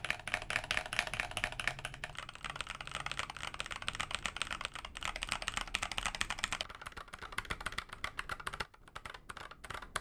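Fast typing on mechanical keyboards (a Keychron K8 Pro, a Keydous NJ80 and a Nuphy Air75), a quick run of key clacks. The typist moves from one keyboard to the next partway through, and there is a short pause near the end.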